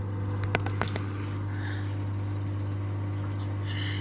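Hoover Softwave Autowasher A0113 washing machine running with a steady low hum, with a few sharp clicks about half a second to a second in.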